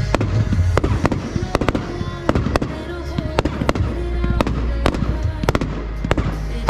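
Fireworks going off in quick succession during a hand-fired finale: sharp bangs about two or three a second, over a low rumble and background music.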